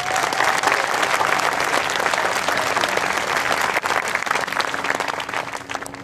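Large crowd applauding with dense clapping that dies down over the last second or so.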